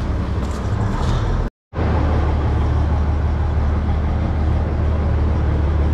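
Bizon combine harvester's SW-400 six-cylinder diesel engine running steadily with a low hum while the combine is maneuvered slowly. The sound drops out completely for a moment about a second and a half in.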